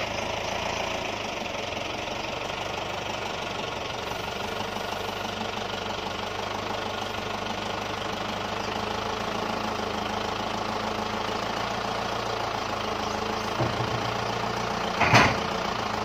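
Compact tractor engine running steadily while its front-end loader carries a log. Near the end, a loud clunk as the log is set down on the sawmill's steel bed.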